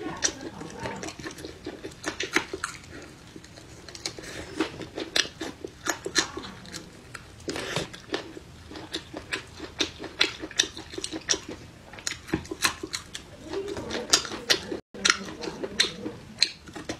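Close-miked chewing of fresh raw red chili peppers: a steady run of sharp, crisp crunches with softer wet mouth sounds in between.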